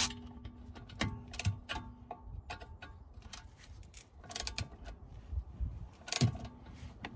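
Ratchet clicking in short irregular runs as the new brake caliper bolt is nipped up by hand, with light metal clinks of tools against the caliper.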